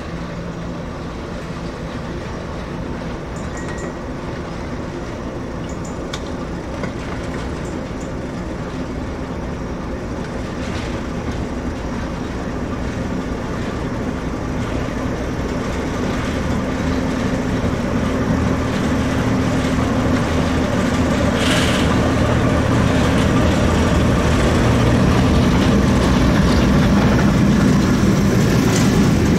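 Diesel shunter's English Electric six-cylinder engine running steadily while it hauls a rake of coaches. It grows louder as it approaches, and a few light clicks from the wheels come through.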